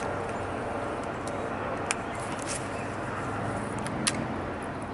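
Steady outdoor background noise, broken by three sharp clicks: one at the start, one about two seconds in and one about four seconds in, with a few fainter ticks between them.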